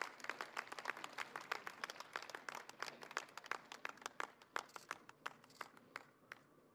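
Light applause from a small crowd, the separate hand claps clearly distinct. It thins out and stops about six seconds in.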